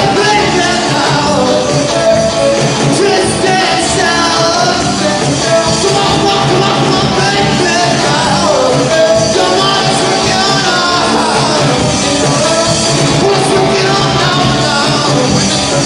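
Live rock band playing loud: electric guitar, drum kit and keyboard, with a sung lead vocal over them.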